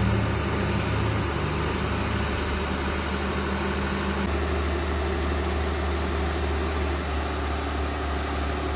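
Tata Hitachi EX200LC crawler excavator's diesel engine running steadily as the machine tracks up the ramp onto a truck's flat deck; the engine's pitch drops slightly about four seconds in.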